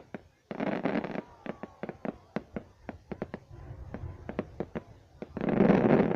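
Fireworks going off: a steady run of sharp cracks and pops, several a second, with two louder rushes of noise, one about half a second in and one near the end.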